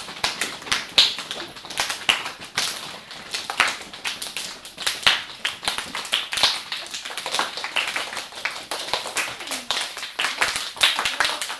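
A class of students imitating rain with their hands: many quick, overlapping claps, taps and finger snaps coming irregularly and densely, like a shower of raindrops.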